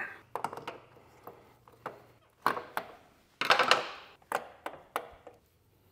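Scattered clicks, knocks and clatter of tools and metal parts being handled, with a louder rattle about halfway through.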